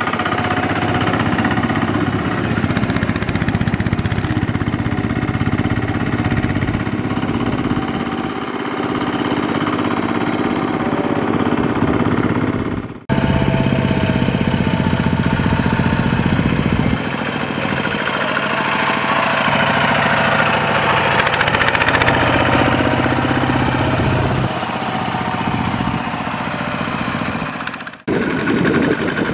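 Single-cylinder diesel engine of a two-wheel walking tractor running steadily under load as it pulls a trailer through mud and water. The sound breaks off briefly twice, about 13 seconds in and near the end.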